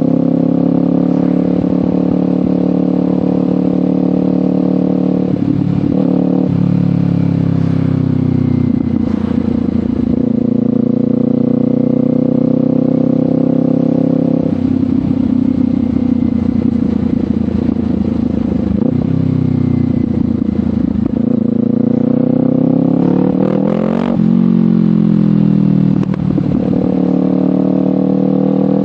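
Kawasaki Ninja 500's parallel-twin engine running through a Leovince GP Corsa Evo exhaust while riding. The engine note drops at a change about six seconds in, climbs under acceleration to a sharp drop as at an upshift about 24 seconds in, then rises again.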